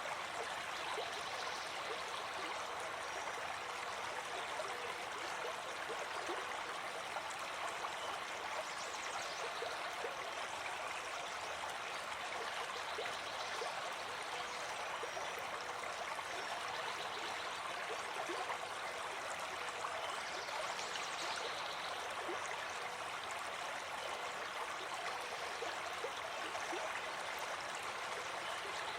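Running water flowing steadily and evenly, with small splashes scattered through it.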